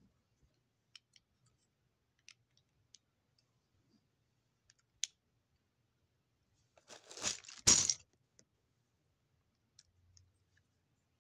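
Close handling noise: a few faint scattered clicks, then a brief crackling, crumpling rustle about seven seconds in, the loudest sound, followed by a couple more faint clicks.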